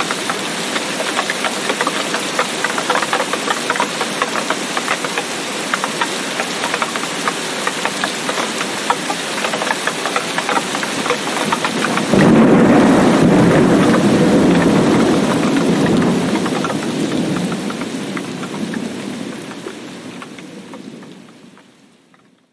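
Heavy tropical rain with the dense patter of individual drops. About halfway through, a sudden loud, low rumble of thunder sets in and slowly rolls away, and the sound fades out near the end.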